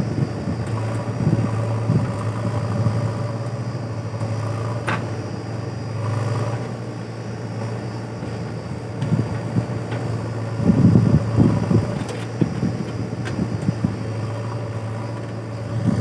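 JCB backhoe loader's diesel engine running steadily while the backhoe bucket digs at a big tree's roots, with irregular thumps and clunks of the bucket and soil, heaviest about eleven seconds in.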